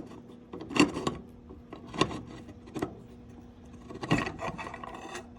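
Metal parts of an old hand-crank grinder being pulled apart and handled: four short knocks with light scraping in between.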